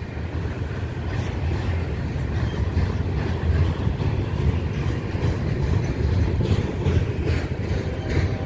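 Double-stack intermodal freight train's loaded well cars rolling past: a steady low rumble of steel wheels on rail, with a few faint clicks now and then.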